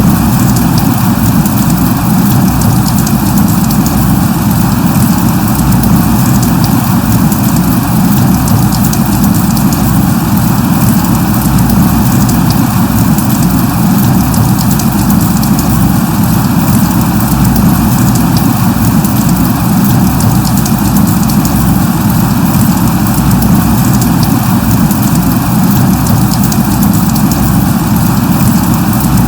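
Light rain falling steadily: an even hiss with a fine patter of drops, unchanging throughout.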